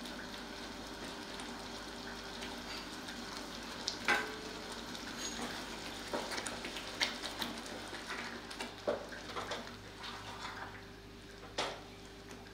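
Thick semolina kesari with freshly added ghee sizzling and bubbling in a pan on the stove. From about four seconds in, a wooden spatula stirs it, with occasional knocks and scrapes against the pan.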